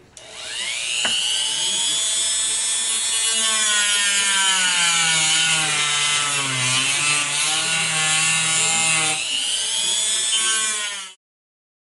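Handheld rotary tool running at high speed, grinding away a marked section of a carvable plastic cover piece: a steady high-pitched whine that climbs as the motor spins up, dips in pitch around the middle as the bit bites into the material, and stops abruptly near the end.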